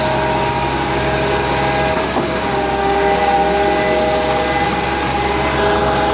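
Heavy machinery at a concrete pour running steadily: a constant engine hum carrying several held whining tones over a broad hiss, with a brief knock about two seconds in.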